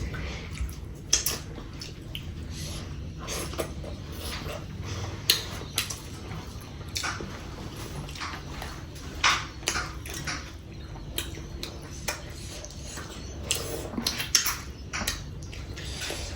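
A meal being eaten: irregular short clinks and taps of tableware, every second or so, over a low steady hum.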